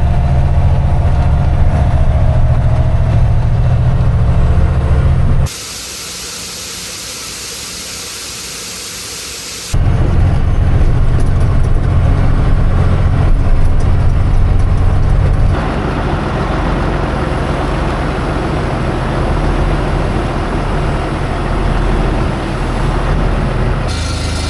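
Heavy vehicle engines running, heard in abrupt cuts from one sound to the next, with about four seconds of loud steady hissing a few seconds in.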